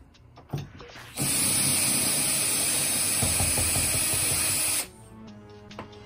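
Cordless drill-driver running steadily for about three and a half seconds, then stopping suddenly, as it backs out the screws of an old deadbolt's interior thumb-turn.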